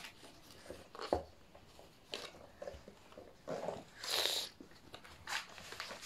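Soft handling of squishy fidget toys: a few faint taps and rustles, with a short hiss about four seconds in.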